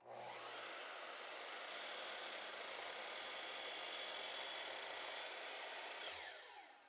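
Miter saw motor starting and the blade cutting through a board in one steady pass. About six seconds in the motor is switched off and the blade winds down with a falling whine.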